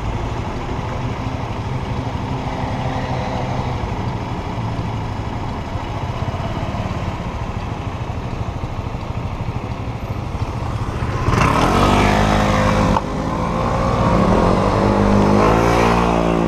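Motor scooter engines idling close by, then from about eleven seconds in motorbikes accelerating away with a climbing engine pitch, rising a second time after a short break.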